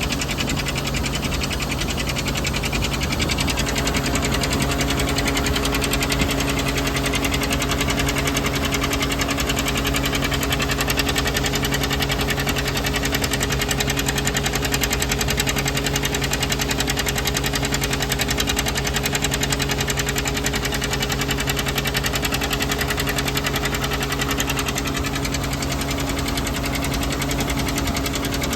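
John Deere 720's two-cylinder diesel running steadily, driving a Gehl grinder grinding chicken feed, with a steady machine hum that rises slightly about three seconds in.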